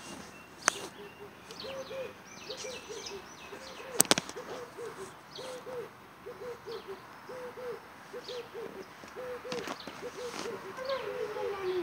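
A dove cooing: a long run of short, soft notes, two to three a second, stepping lower near the end. Small birds chirp faintly, and there are a couple of sharp knocks, the loudest about four seconds in.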